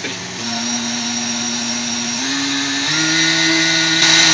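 Countertop blender running a full jar of spinach, banana and water, its motor stepping up in pitch three times as the speed is raised.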